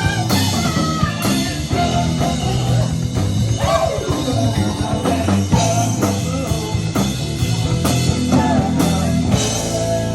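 A rock band playing live: electric guitar with bending, sustained notes over a drum kit.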